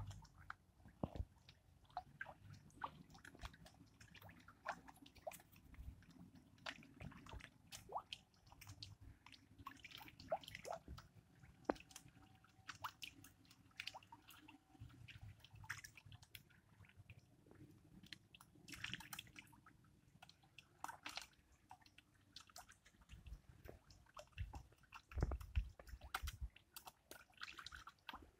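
A group of pond fish feeding at the water surface, their mouths slurping and smacking at the water in a steady, irregular patter of small wet pops and clicks. A few heavier splashy pops come near the end.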